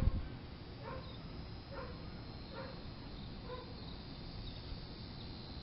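Puppy whimpering in a run of short, falling whines, about one a second, over a steady high buzz of insects.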